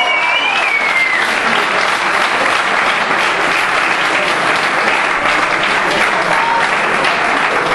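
Crowd applauding, a dense, steady clapping that holds throughout.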